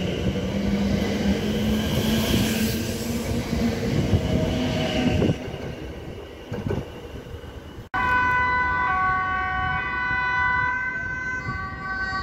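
Electric NS Sprinter train pulling away from the platform: a low steady motor hum over the rumble of wheels on rails, fading away after about five seconds. After an abrupt cut, several steady high whining tones overlap, starting and stopping.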